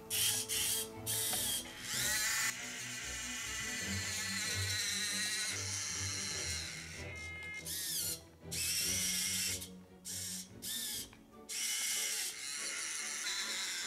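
Small electric motors and gearing of a 1/32-scale radio-controlled John Deere 7280R tractor running in short stop-start bursts as its front loader and drive are worked, over background music.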